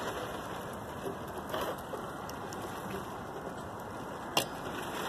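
Wiper blade being worked onto a car's wiper-arm J-hook: a few faint clicks and one sharp click about four seconds in, over a steady hiss.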